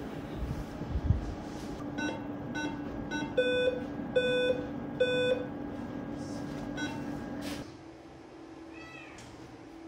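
Patient monitor beeping over a steady electrical hum: a few short beeps, then three longer, lower beeps a little under a second apart, then one more short beep. A low thump about a second in; near the end a kitten gives a faint meow.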